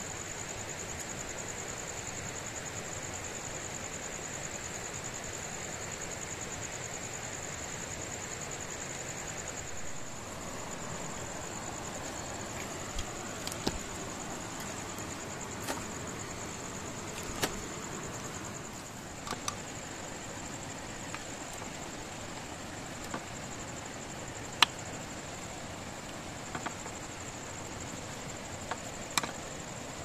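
Night insects chirring steadily and high over a soft background hiss. Scattered sharp clicks and taps come in the second half, and near the end a knife cuts calamansi on a bamboo cutting board.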